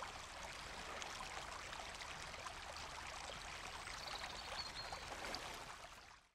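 River water rushing over rocks in a shallow stream: a steady wash of running water that fades out near the end.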